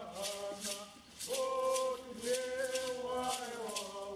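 Chanted singing, with voices holding long notes, over a rattle shaken in a steady beat of about three strokes a second.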